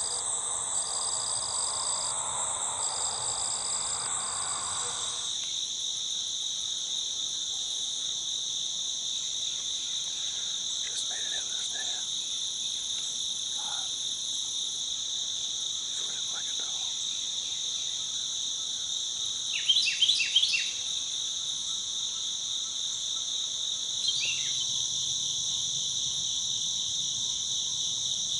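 Steady high-pitched trilling of a chorus of crickets and other insects in the woods before sunrise. About twenty seconds in, a bird gives a short burst of loud calls, the loudest thing heard, and another brief chirp follows a few seconds later.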